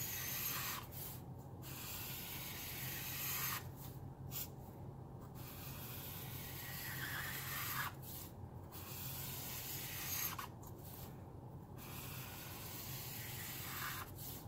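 Caliart alcohol marker's felt tip rubbing across paper as lines are drawn, a scratchy hiss that stops briefly between runs of strokes, about every two to three seconds.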